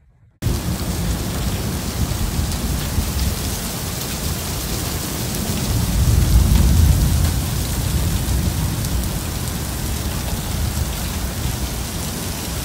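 Heavy rain pouring down in a storm. It starts abruptly just after the start, and a deep low rumble swells about halfway through.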